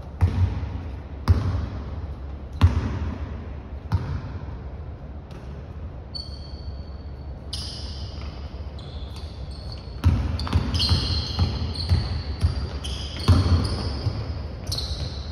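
Basketball bouncing on a hardwood gym floor: a few slow dribbles about a second and a half apart, then from about ten seconds in a quicker run of bounces. Sneakers squeak sharply on the court through the second half.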